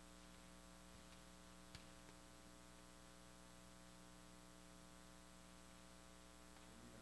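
Near silence: room tone with a steady electrical hum, and one faint click a couple of seconds in.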